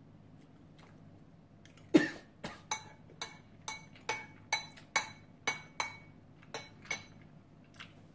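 A metal spoon clinking against a ceramic bowl of ramen: about a dozen short ringing clinks, roughly two a second, starting about two seconds in, the first the loudest.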